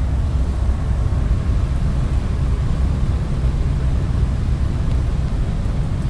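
Homemade cardboard bladeless fan running steadily: the motor-driven blower in its base pulling air in and pushing it out of the ring, a loud, even, low whir with airy hiss.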